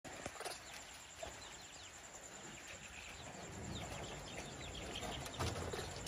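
Baby macaque whistling: a run of short, high, falling chirps, several a second, with a sharp knock near the start.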